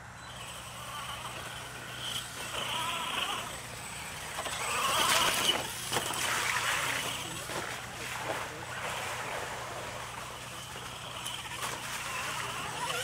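Radio-controlled monster truck driving across a dirt track, its motor whining and rising and falling with the throttle, then splashing through a mud puddle in the second half.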